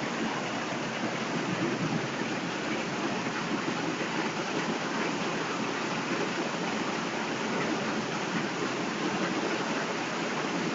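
Heavy rain pouring down in a downpour: a steady, dense hiss that holds even throughout.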